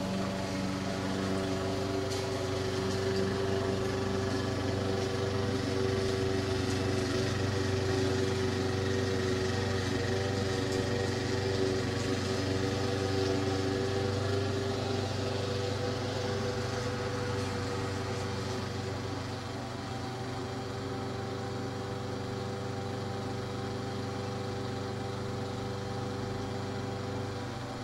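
A small engine running steadily at an even speed, a little quieter from about two-thirds of the way through.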